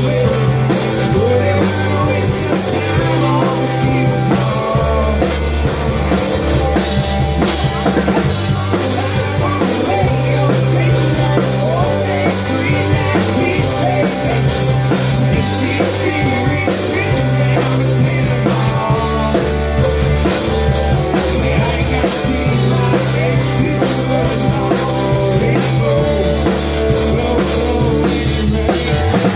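A rock band playing live: electric guitar and drum kit with constant cymbal hits over a low bass part that shifts between held notes every couple of seconds.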